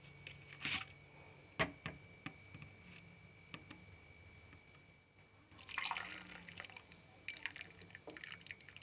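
Kadha (a tea decoction) dripping and splashing, with a sharp click about a second and a half in, scattered small ticks, and a short splash about five and a half seconds in.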